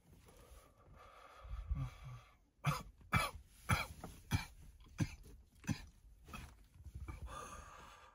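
A man coughing in a fit from blunt smoke: about six hard coughs, roughly half a second apart, starting a few seconds in.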